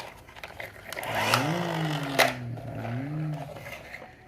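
A man's drawn-out wordless vocal sound that rises and falls in pitch twice over about two seconds, with a sharp click in the middle, against light handling clicks.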